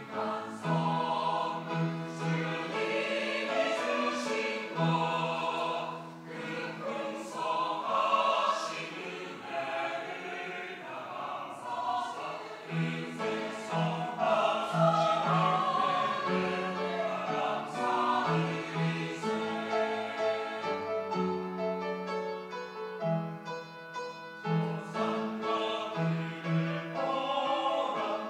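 Church choir singing a sacred praise anthem, several voices holding sustained chords that shift every second or so; the singing grows softer and thinner for a few seconds after about twenty seconds in, then fuller again near the end.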